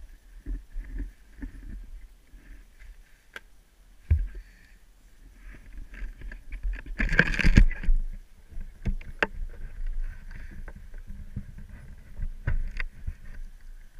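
Camera handling noise: rustling and scattered knocks over a low steady rumble, with a long loud rustle about seven seconds in.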